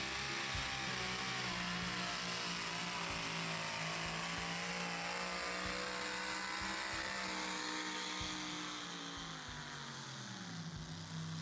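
Engine of a competition pulling vehicle running flat out at a steady high pitch during a pull, then winding down in pitch about nine to eleven seconds in.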